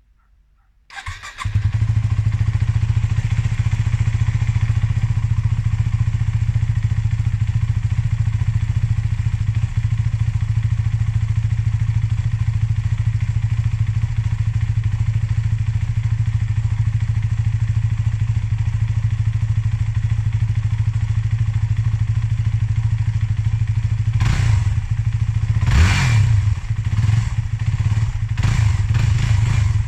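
Yamaha WR250X's 250 cc single-cylinder four-stroke engine, through its stock exhaust, starting about a second in and then idling steadily. Near the end it takes several quick throttle blips.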